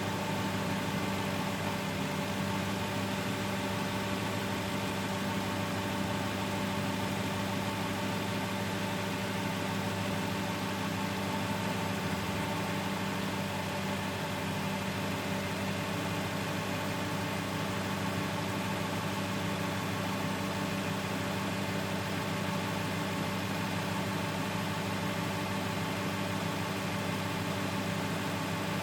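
Aston Martin car engine idling steadily at one even pitch, with no revving.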